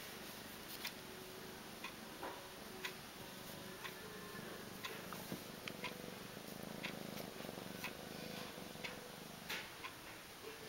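Kitten purring softly, with a desk alarm clock ticking about once a second.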